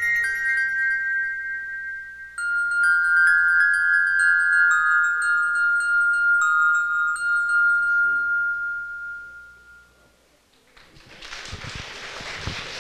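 Bell-like chime tones, like wind chimes, ringing in overlapping strokes and slowly dying away about ten seconds in. After a brief near silence, a steady noisy hiss with fine crackle begins near the end.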